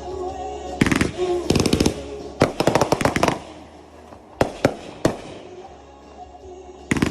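Consumer fireworks going off in rapid crackling strings of bangs: a burst about a second in, a longer string around two to three seconds in, a few single pops, and another burst near the end.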